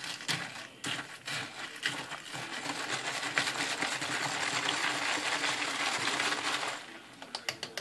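Handheld battery-powered milk frother whisking an iced mocha in a plastic cup: ice clinks and rattles against the cup, then the frother runs with a steady whir and low hum for about four seconds and cuts off, followed by a few more clinks.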